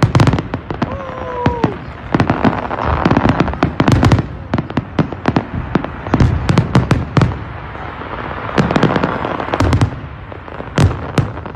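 Fireworks display: aerial shells bursting in rapid, irregular bangs, with a hiss of crackling between them.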